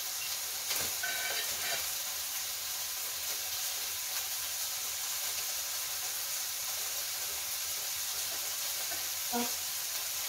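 Steady sizzling hiss of food cooking on a tabletop grill in the middle of the table.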